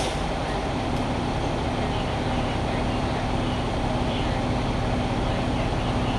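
Fire-rescue truck idling: a steady low engine rumble with a constant hum.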